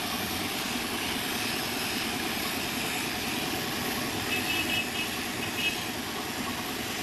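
Gravity-feed paint spray gun hissing steadily as it sprays paint onto a metal rolling shutter, with a steady machine drone under it. A few short high chirps come in about four to six seconds in.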